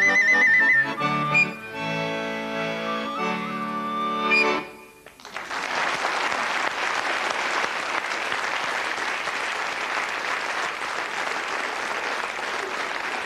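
Clarinet and accordion play the closing bars of a song: a high trill, then held chords that end about five seconds in. Studio audience applause follows and runs on steadily.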